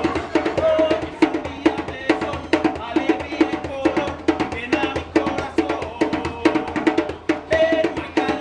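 Lively music played on percussion, with sharp knocking strikes in a quick, steady rhythm over short pitched notes.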